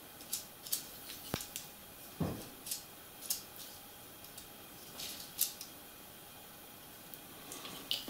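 Faint, scattered clicks and light taps of fingers handling a small plastic model-railway turnout part, with a brief quiet spell near the end.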